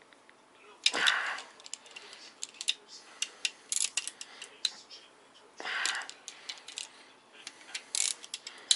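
Ratchet wrench clicking in short runs as the main bearing cap bolts of a VW VR6 engine block are broken loose with a triple-square bit. Two louder bursts of noise come about a second in and just before six seconds.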